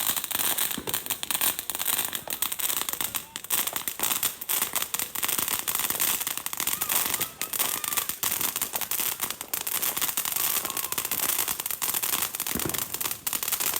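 Consumer fireworks going off in a long run of dense, rapid crackling pops, steady throughout.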